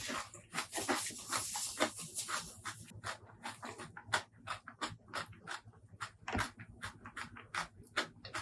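Close-miked eating: wet chewing and mouth smacks in quick, irregular clicks, with a steady breathy hiss over the first three seconds.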